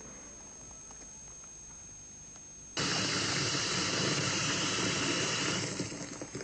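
Water gushing from a mixer tap into a basin, starting suddenly about three seconds in, then thinning and cutting off near the end as the tap is turned off.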